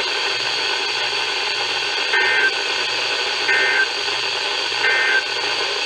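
Weather radio receiver hissing with static, with three short, evenly spaced bursts of a warbling digital data tone starting about two seconds in. The bursts are the Emergency Alert System (SAME) end-of-message code that closes a NOAA Weather Radio warning.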